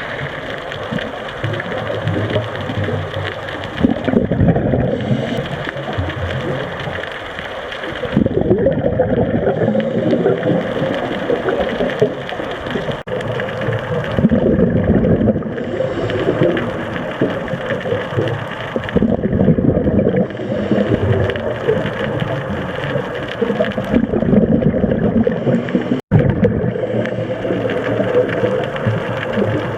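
Scuba diver's regulator breathing heard underwater: bursts of exhaled bubbles rumbling and gurgling past the housing, alternating with the hiss of inhalation, in slow cycles of about four to five seconds.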